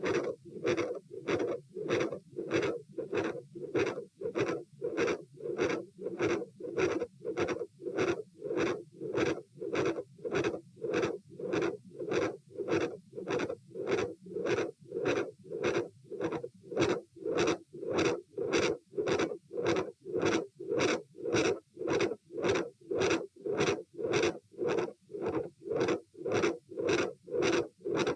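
Heartbeat heard through a stethoscope: a fast, regular rhythm of heart sounds with a large second heart sound (S2) and a continuous murmur.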